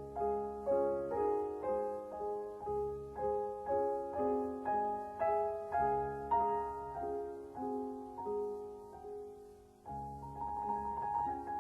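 Background piano music: a slow, even run of notes, about two a second, each fading after it is struck. It dips away briefly near the end before picking up again.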